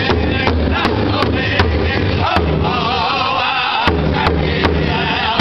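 Powwow drum group: several singers beating a large rawhide powwow drum in unison, about two and a half beats a second, under high-pitched group singing. Past the middle the drumbeat drops out for about a second and a half while the singing carries on, then comes back in with a hard beat.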